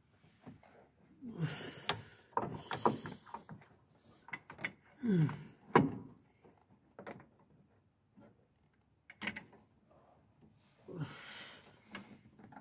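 Hand tools and metal parts clicking, knocking and scraping in short bursts while a clutch master cylinder is worked into place in a cramped spot, with a few short sounds falling in pitch and a brief pause partway through.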